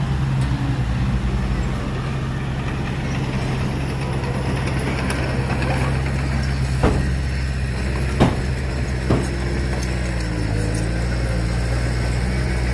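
Heavy diesel engine of a dump truck or earthmover idling steadily, with three sharp metallic knocks about seven, eight and nine seconds in. The engine note dips briefly and recovers about ten seconds in.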